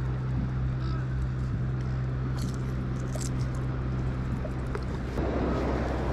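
Steady low drone of a motorboat engine running, with a few faint small ticks, and a light rush of noise joining about five seconds in.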